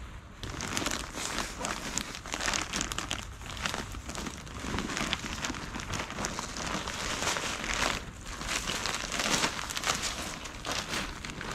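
Plastic bag of potting mix crinkling and rustling as soil is poured from it into a large pot, with a dense run of irregular crackles.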